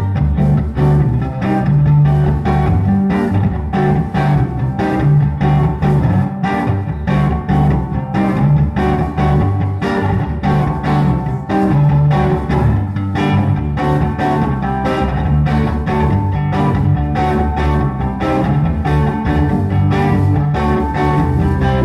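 Live band playing an instrumental rock groove: electric guitar and keyboards over a steady drum beat with heavy low notes.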